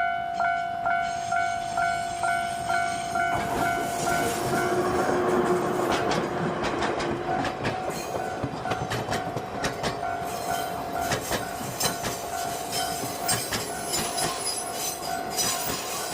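Railway level-crossing warning bell ringing about three times a second. From about four seconds in, a diesel-hauled passenger train passes over the crossing with its wheels clattering over the rail joints, while the bell keeps sounding.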